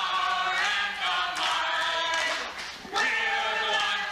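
A man and three women singing a school song together, with a brief break between lines about three-quarters of the way through.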